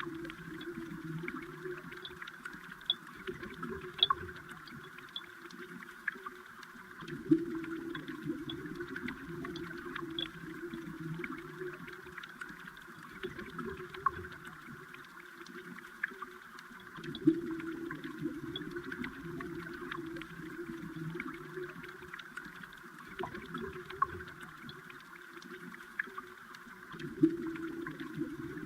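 Flowing stream water heard underwater: a steady rushing with scattered sharp ticks and clicks, a few louder ones every few seconds.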